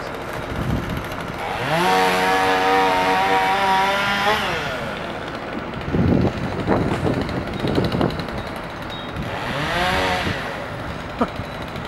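Chainsaw revved up to full throttle and held for about two and a half seconds, then dropping back to idle, with scattered knocks after it. Near the end it is revved again in a shorter burst that rises and falls.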